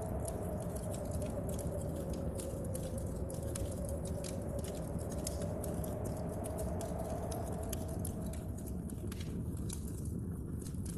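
Fire crackling in a stove, many sharp pops, over a steady hiss and rumble of rain and wind. A faint wind whistle sinks slowly in pitch and fades about eight seconds in.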